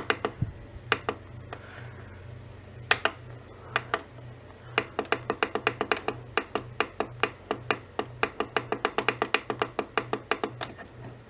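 Buttons on an Emerson Research CKW2000 weather alert radio being pressed in quick runs: sharp clicks several a second, broken by two short pauses near the start, over a faint low pulsing hum.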